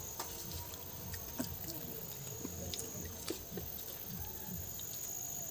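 A person chewing a bite of soft pakkavada (fried onion and gram-flour fritter) close to the microphone, with three sharp clicks: near the start, about a second and a half in, and about three seconds in. A thin high insect whine comes and goes underneath.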